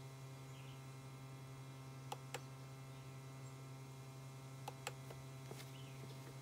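Laptop touchpad clicks: two clicks about two seconds in, then three or four more around five seconds in, over a steady low hum.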